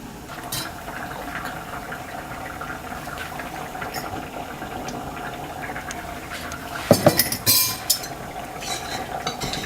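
Coconut-based prawn curry gravy boiling in a pan, a steady low bubbling with small pops. About seven seconds in come several louder metallic clinks and clatters of cookware, the loudest sounds.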